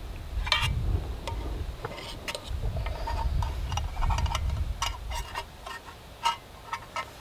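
Sharp metallic clicks and clinks of a metal canteen cup and its folding handle being handled, about a dozen light ticks spread over several seconds, over a low rumble of wind on the microphone.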